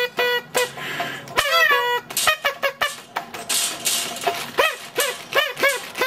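Corella calling: a quick run of short, even whistled notes at the start, then a series of rising-and-falling squawks, with scattered clicks between them.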